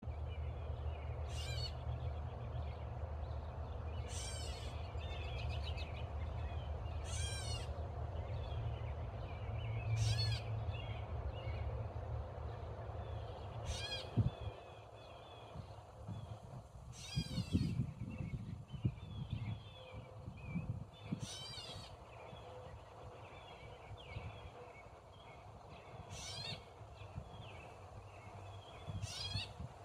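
Catbird giving harsh squawking calls, one every two to four seconds, about nine in all, scolding a person close by. A low rumble runs under the first half, and a few dull knocks come in the middle.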